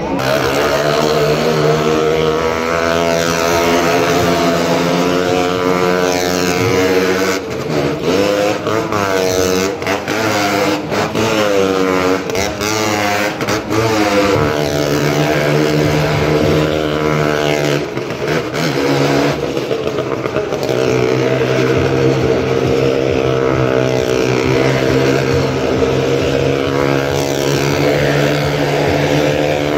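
Motorcycle and small car engines running hard as they circle the wall of a well-of-death drum. The engine pitch holds steady, then rises and falls repeatedly in the middle.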